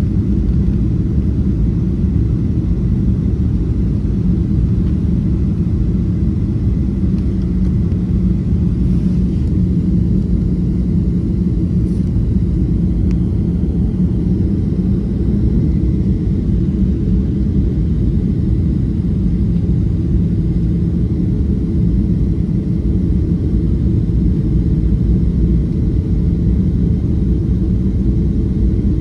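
Cabin noise of a Boeing 737-500 descending to land, heard from a window seat over the wing: a steady low rumble of its CFM56-3 turbofan engines and the airflow over the airframe, with a faint steady hum underneath.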